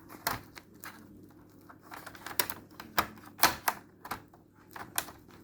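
Irregular sharp clicks and taps of small hard laptop parts being handled and worked loose during disassembly, the loudest a little past the middle.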